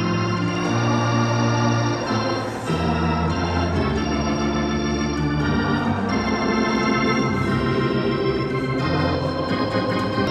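Ballpark organ playing held chords that change about every second, for the seventh-inning stretch.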